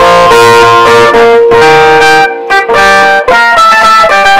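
Stratocaster-style electric guitar played loud, a lead line of held single notes changing one after another, with a brief break a little past two seconds in.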